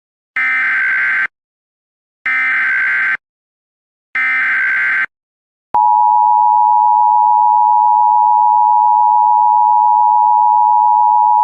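Emergency Alert System header: three short buzzy digital data bursts of the SAME code, each about a second long, then a loud steady attention tone that starts a little past halfway and holds.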